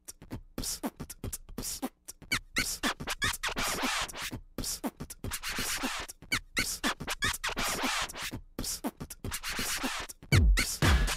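Hip-hop intro: rapid beatbox-style percussive clicks and record-scratch sounds, then a deep booming kick-drum beat that comes in about ten seconds in and is the loudest part.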